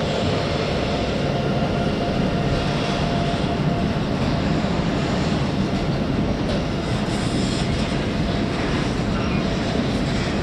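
Freight train of double-deck car-carrier wagons rolling past behind an electric locomotive: a steady, even rumble of wheels on rail. A faint high whine fades out in the first few seconds.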